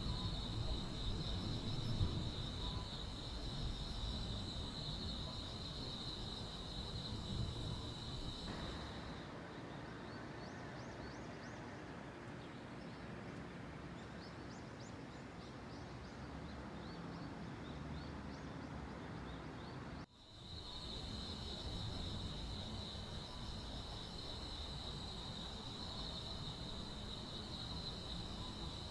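Grass insects such as crickets trilling steadily at a high pitch over a low background rumble. About a third of the way in the trill gives way to scattered short, high chirps; it cuts off abruptly about 20 seconds in and the steady trill comes back.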